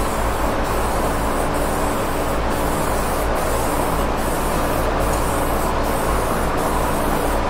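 Aerosol spray can hissing steadily as candy green paint is laid on a guitar body in overlapping passes, over a steady low hum.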